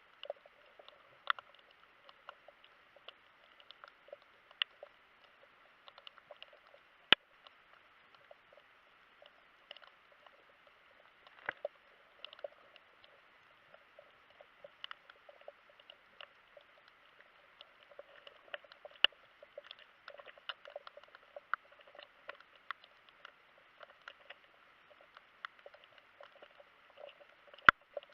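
Underwater crackling: dense, irregular small clicks and pops, with a few sharper, louder clicks standing out.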